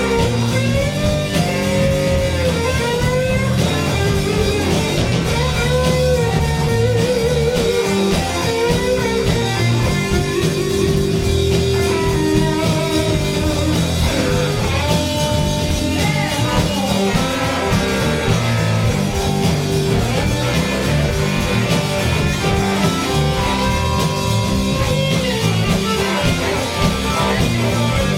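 Live blues-rock band playing, without singing: a lead guitar bends and shakes single notes over bass and drums.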